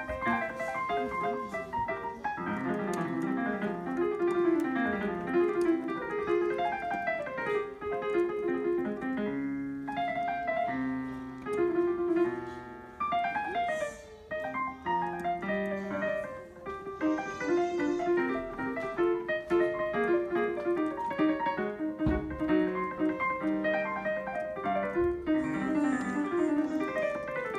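Casio digital piano played solo with both hands, a busy piece of many quick notes, with brief quieter passages about ten and fourteen seconds in.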